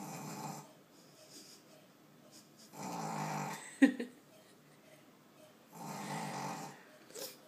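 Three-month-old Boston Terrier puppy snoring loud, three snores about three seconds apart. Just after the second snore comes one brief, sharp sound with a quick rising squeak, the loudest moment.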